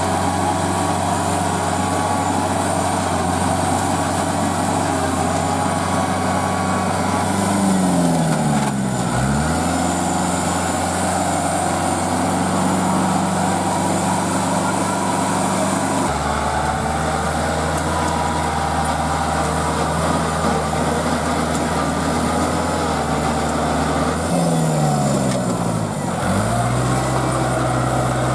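Tractor diesel engine running steadily. Its pitch drops sharply and climbs back up twice, and the engine note changes abruptly about halfway through.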